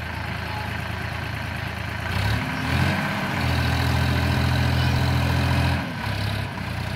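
Tractor diesel engine running near idle, then revving up a little after two seconds in and holding the higher revs as it pulls its tipping trailer forward through soft soil, before easing back down near the end.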